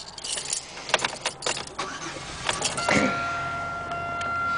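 Car keys rattling and clicking in the driver's seat, then about three seconds in the car's engine starts and settles into a steady idle, with a thin high steady tone over it.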